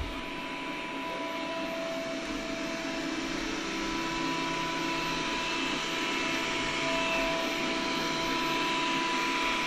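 Robot vacuum cleaner running: a steady motor whirr with a few faint steady tones, slowly growing louder.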